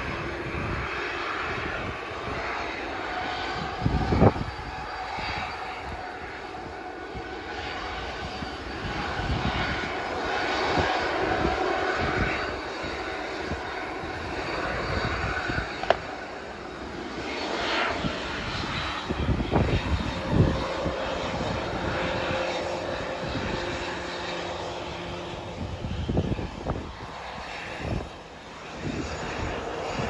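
Jet engines of a Boeing 737 airliner running at power on its takeoff roll, a steady roar with a faint whine. Gusts of strong wind buffet the microphone with low rumbles throughout.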